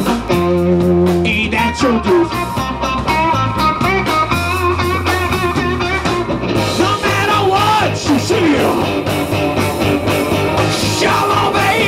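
Live band playing loud electric blues-rock on electric guitars and drums, the lead guitar bending notes over steady low notes.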